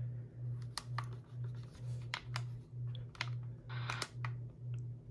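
Plastic push-buttons on an Etón Zoneguard weather alert radio clicking as they are pressed one at a time, with a short cluster of presses near the end. Under the clicks runs a low hum that pulses about twice a second.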